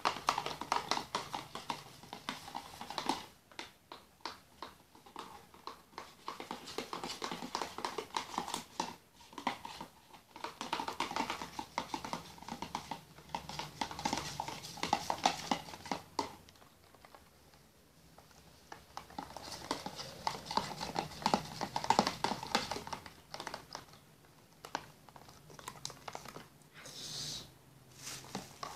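Plastic spoons stirring a thick glue-and-baking-powder slime mixture in plastic tubs, clicking and scraping against the tub sides in rapid runs of clicks, broken by a few short pauses.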